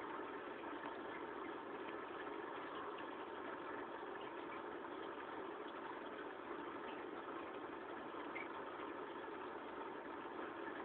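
Steady hum of aquarium equipment running, with a faint watery wash.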